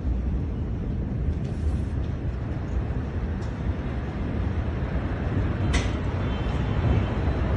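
Steady low rumbling noise with a brief sharp crackle about six seconds in.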